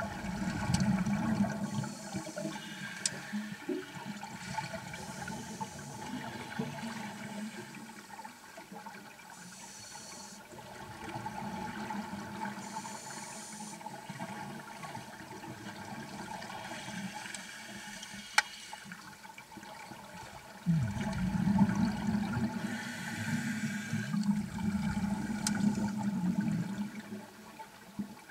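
Scuba breathing heard underwater: the hiss of a regulator's inhalations every few seconds, alternating with low bubbling of exhaled air, over a steady water wash. A few sharp clicks stand out.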